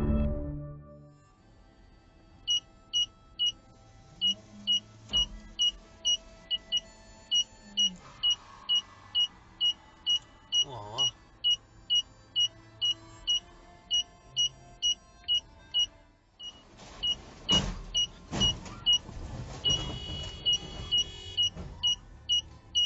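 Short electronic warning beeps repeating about two and a half times a second. Then a few loud crashes of a car reversing into parked cars, metal and plastic smashing. After the crashes the beeping comes back, closer together.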